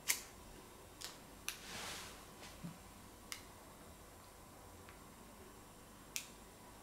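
A small plastic remote control being handled, giving a few sharp clicks spaced over several seconds, with a brief rustle about two seconds in.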